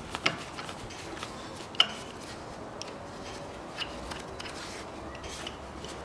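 Irregular metal clicks and clinks of a socket wrench with a long extension being handled and fitted in an engine bay, with one sharper click about two seconds in.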